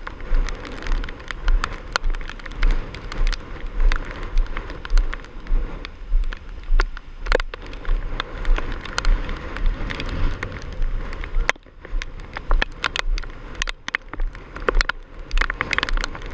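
Heavy wind-driven rain pattering on the microphone in many rapid clicks, with hurricane wind gusts buffeting it in a steady, pulsing low rumble.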